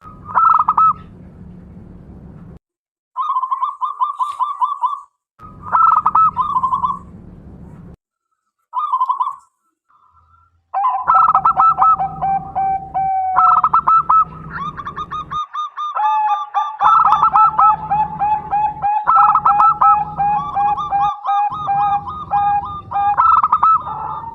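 Zebra doves (perkutut) cooing in rapid staccato trills of repeated notes, in phrases broken by short silent gaps. From about eleven seconds in, two birds call over each other, one a little lower-pitched than the other.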